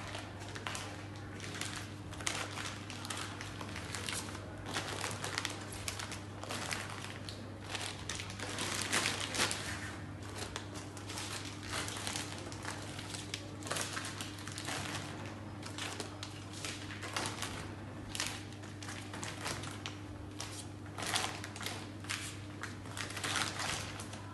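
Vacuum-sealed plastic food bags crinkling and crackling in quick, irregular bursts as they are handled and packed into a wire basket, over a steady low hum.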